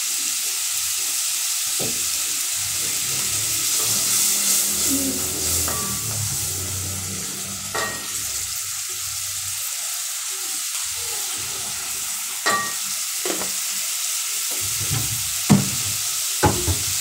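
Garlic-butter sauce sizzling steadily in a metal pot while a wooden spoon stirs and scrapes through it. There are a few sharp knocks of the spoon against the pot, the loudest near the end.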